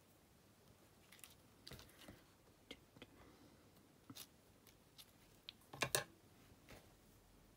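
Faint, scattered clicks and taps of card and a small hand tool being handled on a crafting mat, with a louder double click about six seconds in.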